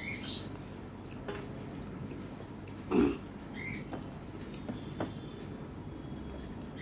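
Fingers squishing rice through mutton curry on a steel plate, with soft wet clicks and mouth sounds of chewing. The loudest wet sound comes about three seconds in.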